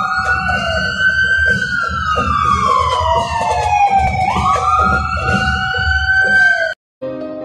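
A siren wailing, its pitch rising, falling slowly and rising again, with two or more siren tones overlapping and a low rumble underneath. It cuts off suddenly near the end, and after a brief gap, light piano-like music begins.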